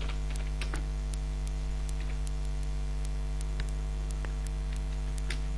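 Steady electrical mains hum with a low buzz and its overtones, picked up by the recording mic. It is dotted with a few faint computer keyboard keystrokes.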